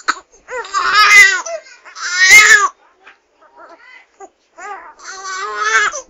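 Baby crying: two loud wails in the first three seconds, then softer short fussing sounds, then another cry near the end.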